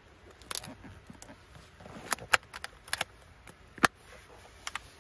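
Short sharp clicks and knocks of a charcoal-briquette foot warmer (mametan anka) case being handled: its lid and clasp latch clicking shut and the case knocking about. There are about a dozen of them, the loudest a little before the four-second mark.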